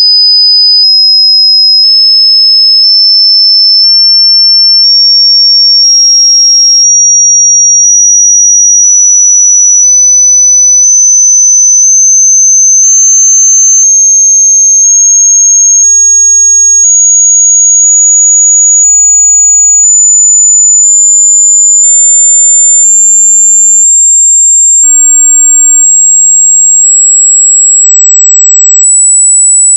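Loud, pure sine-wave hearing-test tone, high in pitch, stepping up a little higher about once a second.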